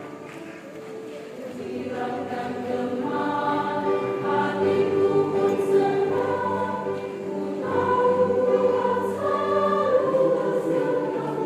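Mixed choir singing in harmony, holding long sustained chords; softer at first, then swelling from about two seconds in.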